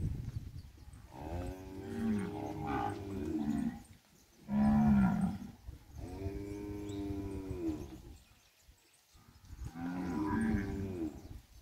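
Nelore cattle mooing: about four long moos, one after another, with short pauses between them.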